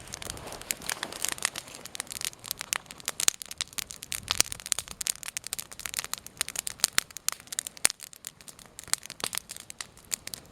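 Campfire of dry standing deadwood burning and crackling, with many irregular sharp pops and snaps.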